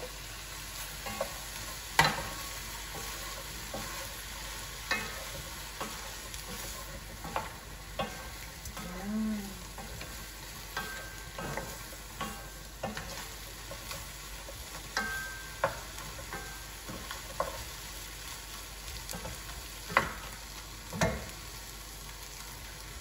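Wooden spatula stirring cubed sponge gourd and lobster pieces in a frying pan, scraping and knocking against the pan in irregular clicks over a steady sizzle of frying.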